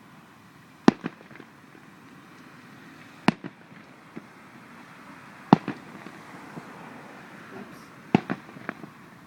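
Fireworks shells bursting overhead: sharp bangs in pairs or threes, a cluster about every two to three seconds.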